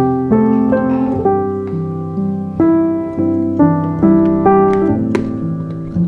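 Background piano music: single notes and chords struck one after another, each ringing and fading.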